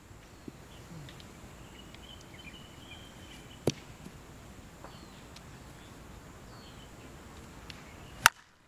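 DeMarini Geezer softball bat striking a lobbed softball: one sharp, loud crack near the end. A smaller knock comes about a third of the way in, and faint bird chirps sound over steady outdoor background noise.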